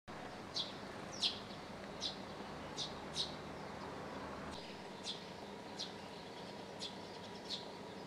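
Eurasian tree sparrow chirping: nine short, high chirps, each dropping quickly in pitch, at uneven intervals over a steady low background hiss.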